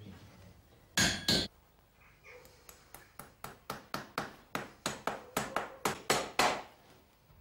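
Farrier's hammer: two ringing blows on the anvil about a second in, then a quick run of taps, about five a second and growing louder, driving a horseshoe nail into a hoof.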